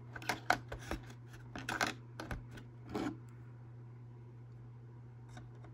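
Clear plastic blister packaging being handled: a quick flurry of crinkles and taps over the first three seconds, then it goes still. A steady low hum runs underneath.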